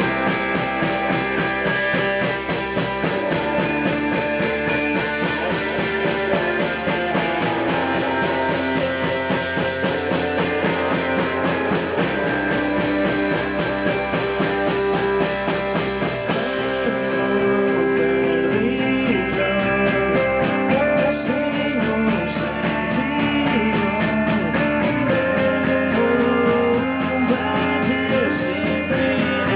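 Rock song played by a band, with guitar and a drum kit keeping a steady beat.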